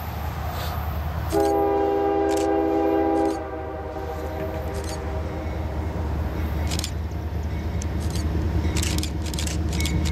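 CSX freight train's lead diesel locomotive sounding one long blast of its multi-note air horn, lasting about two seconds and starting about a second in, with a brief echoing tail. Under it the low rumble of the approaching diesel locomotives grows steadily louder.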